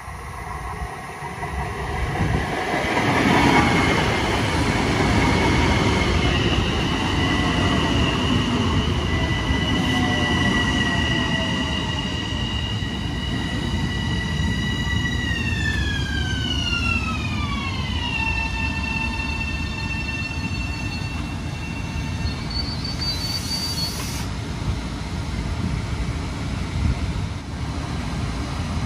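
Long Island Rail Road train slowing, rumbling on the rails, with a steady high motor whine that glides down in pitch about halfway through and then holds at a lower pitch.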